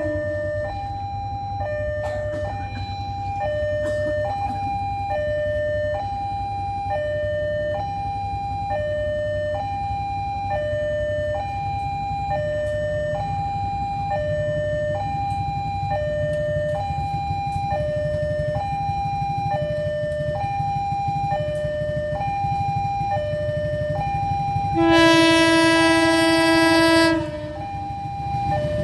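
A two-tone electronic warning alarm sounds steadily, switching between a higher and a lower pitch about once a second, over a low rumble. Near the end a diesel locomotive's air horn gives one loud blast of about two seconds.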